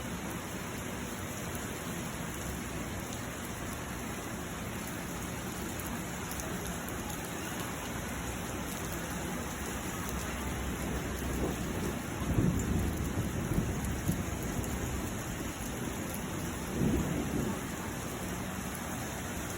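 Steady heavy rain pouring down, with low rumbles of thunder swelling about two-thirds of the way through and again briefly near the end.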